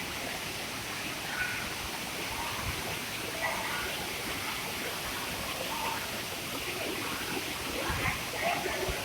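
Steady rushing of falling water from a small waterfall, with faint voices in the background.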